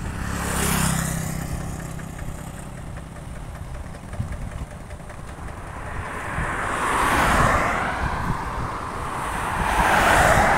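A motor vehicle's engine running, its low hum fading over the first two seconds, followed by two swells of rushing noise about seven and ten seconds in.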